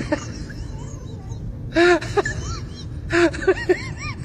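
People's voices giving short exclamations that rise and fall in pitch, one about two seconds in and a quick run of three or four about three seconds in, over a steady low rumble.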